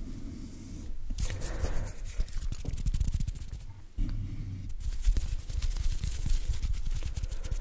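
ASMR hand sounds: fingers fluttering and hands waving close to a condenser microphone, giving a steady low rumble of moving air on the mic with scattered soft clicks of skin and fingers. There are brief rushes of air about a second in and again near the five-second mark.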